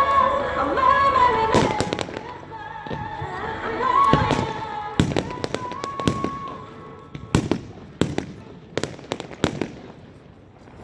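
Fireworks shells bursting in sharp bangs, a few at first and then a quick series in the second half, over music with held melodic notes that fade out about seven seconds in.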